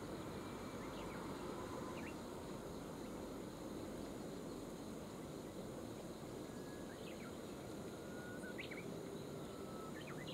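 Steady outdoor background rush with a few faint, short bird chirps scattered through, several seconds apart.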